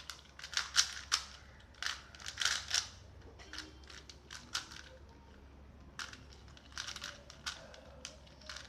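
Rubik's cube being turned quickly by hand: bursts of fast plastic clicking and rattling as the layers turn, with a pause of a few seconds in the middle.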